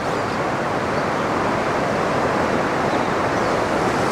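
Steady rushing of a river running over a stony riffle.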